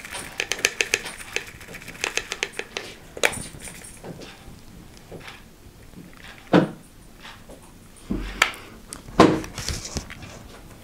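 Tiny plastic diamond-painting drills poured into a small metal mesh tea strainer, rattling as a quick patter of clicks for about three seconds. After that come scattered clicks and a few louder knocks and clinks of the strainer against a bowl and jar.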